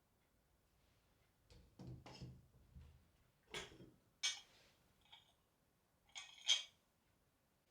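A handful of short knocks and clatters of objects being handled and set down, in about five clusters over several seconds, the last two the loudest.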